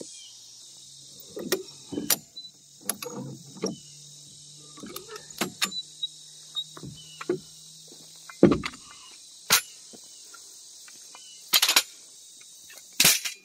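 Irregular knocks and scrapes of stones and digging as rocks are dug in and set as supports under a shed, with a few sharper clacks in the second half, over a steady chorus of crickets.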